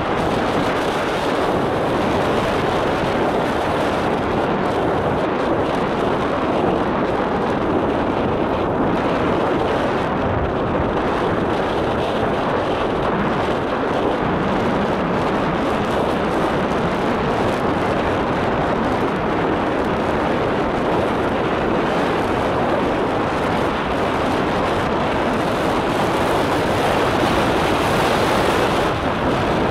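Motorcycle riding steadily, its engine noise blended with wind rushing over the microphone into an even, unbroken noise.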